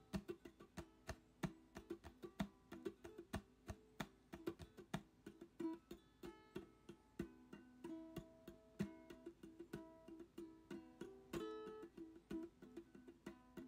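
Background music: a plucked acoustic guitar playing a quick run of picked notes.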